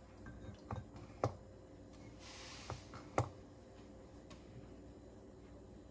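A glass handled under a syrup bottle's pump as vanilla syrup is pumped in: a few light clicks and knocks, the loudest about three seconds in, with a brief soft hiss just before it.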